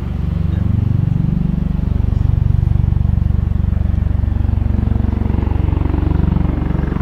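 Bell Boeing MV-22 Osprey tiltrotor flying in helicopter mode, its two proprotors giving a fast, even, low throbbing beat over the turbine engines. It grows louder about a second in.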